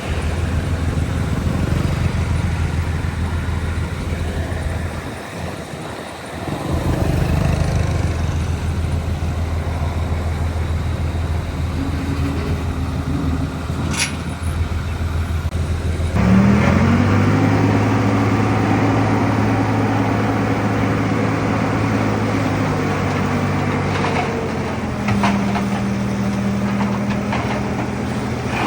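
Heavy diesel engine of earthmoving machinery running steadily. It eases briefly about five seconds in, then revs up about sixteen seconds in and holds a higher, steady note. A sharp click comes near the middle, and a few more near the end.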